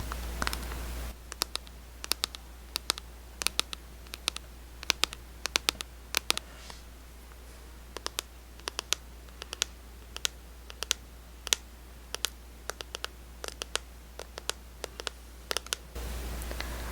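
Fingernails tapping and scratching on cosmetic packaging close to the microphone. The sharp clicks come irregularly, a few each second.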